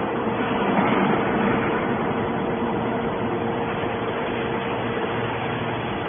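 Hydraulic scrap-metal baler running, a steady mechanical noise with a faint constant tone through it.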